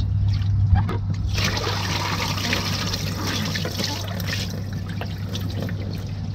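Water poured out of a plastic tub, splashing and trickling down for several seconds as floodwater is bailed from a boat's hull, strongest about a second in and easing off in the second half. A steady low hum runs underneath.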